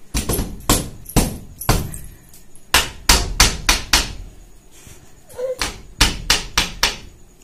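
A series of sharp hand slaps at an uneven pace: several in the first two seconds, a quick run of about six in the middle, a short pause, then four or five more near the end.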